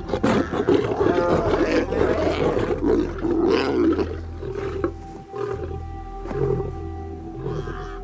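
Lioness snarling and growling aggressively as she lunges at a cub to drive it off her kill, with music underneath.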